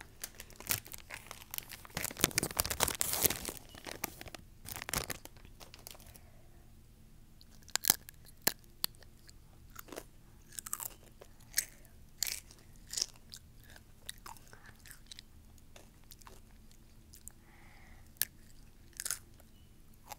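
Crunching and chewing of Flamin' Hot Nacho Doritos tortilla chips. A dense run of crunches fills the first six seconds and is loudest two to three seconds in; after that come slower single crunches about once a second.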